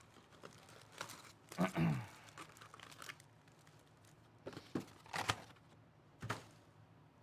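Trading-card pack wrappers crinkling and tearing as packs are ripped open and handled, in a few separate sharp crackles, loudest near 2 seconds, near 5 seconds and once just after 6 seconds.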